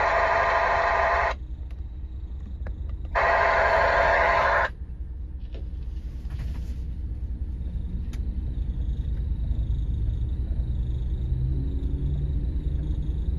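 Police scanner radio giving two bursts of static hiss with sharp starts and stops, the first lasting just over a second at the start and the second about a second and a half long, beginning about three seconds in. A steady low rumble runs underneath.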